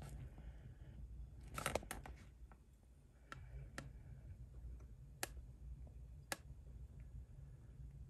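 Faint room hum with scattered sharp clicks and taps: a quick cluster of clicks about one and a half seconds in, then single clicks every second or so.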